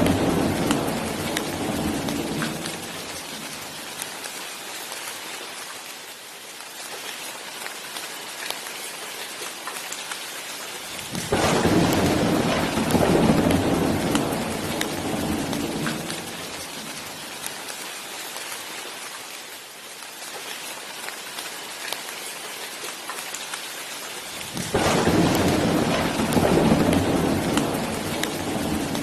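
Steady rain falling, with rolls of thunder. One rumble is dying away at the start, another breaks about 11 seconds in, and a third about 25 seconds in, each fading over several seconds.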